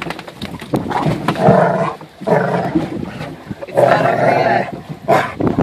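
Black Labrador retriever growling and grumbling in four long bursts, a tantrum in protest at being made to come out of the water.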